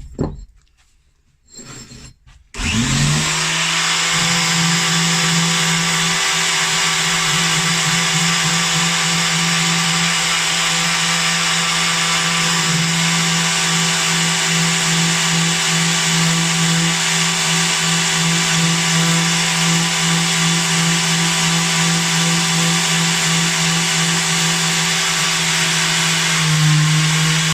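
Electric sander with a 120-grit disc started up about two and a half seconds in, spinning up and then running steadily with a constant hum as it sands the steel of an axe head. A few light knocks come before it starts.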